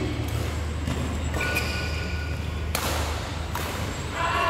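Badminton rally: two sharp racket-on-shuttlecock hits about a second and a half apart, over the steady low hum of a large indoor sports hall.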